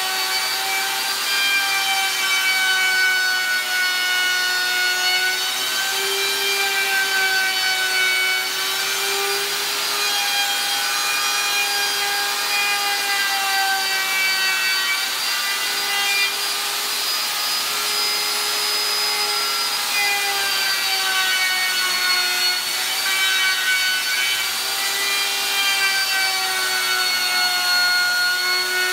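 DeWalt handheld router running and cutting into a high-density polyethylene cutting board. It gives a steady high whine that wavers slightly in pitch as the bit is pushed through the plastic.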